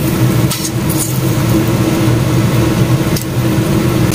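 A metal spatula stirring chopped young jackfruit in a stainless steel pot, clinking against the pot a couple of times, over a loud steady machine hum.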